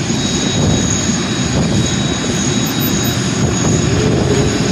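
Jet airliner's engines running as the plane taxis past: a steady, loud roar with a thin high whine held over it.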